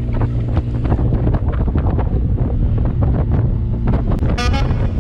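Boat engine droning steadily under heavy wind buffeting on the microphone. About four seconds in, music with a bright, pitched melody cuts in.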